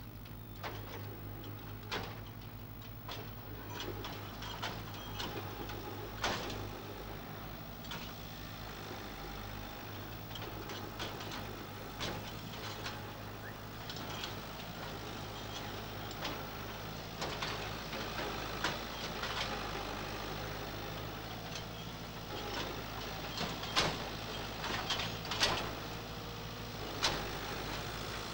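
Farm tractor engine running at low revs as the tractor slowly manoeuvres a four-wheeled farm trailer, with scattered clanks and knocks throughout.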